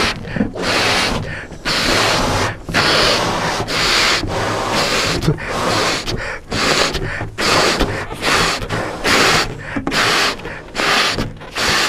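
Two people blowing up latex balloons as fast as they can: repeated hard breaths blown into the balloons, about one a second, with quick gasping inhales between.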